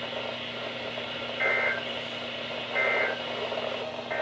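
Emergency Alert System end-of-message data bursts from a NOAA Weather Radio receiver's speaker. Two short warbling two-tone digital squawks come about a second and a half apart, and a third starts at the very end, marking the end of the warning broadcast. A steady hiss and hum of radio reception lies under them.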